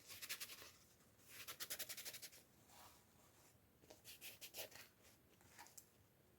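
Faint scratching and rubbing from hands working at toy packaging, in three short runs of quick, repeated strokes.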